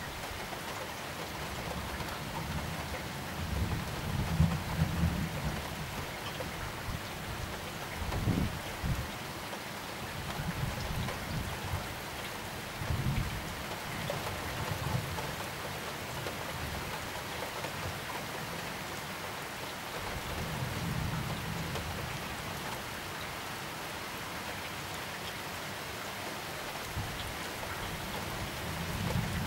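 Steady heavy rain in a thunderstorm, with low rumbles of thunder rolling in and out several times, the strongest about four to five seconds in and a sharper one about eight seconds in.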